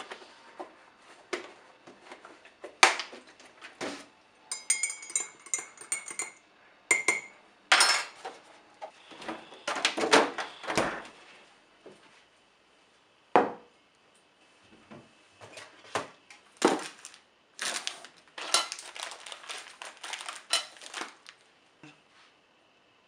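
Metal teaspoon stirring tea and clinking against the inside of a ceramic mug, a run of ringing clinks about five seconds in. Scattered knocks and handling noises follow as the mug is set down on and moved about the countertop.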